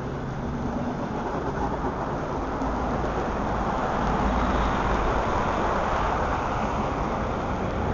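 Suburban electric multiple unit running past along the platform: a steady rumble of its wheels on the rails with a low hum underneath, growing louder about four seconds in.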